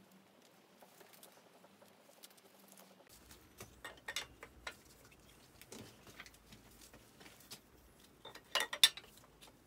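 Light scattered clicks and taps of hand work on an engine, ending in a quick cluster of sharper clicks near the end.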